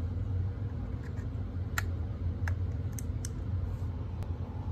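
A few sharp plastic clicks as a small handheld camcorder is handled on carpet, over a steady low hum.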